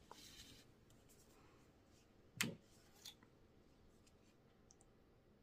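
Near silence, broken by one sharp click about two and a half seconds in and a fainter tick soon after, from handling a small plastic bottle of craft paint.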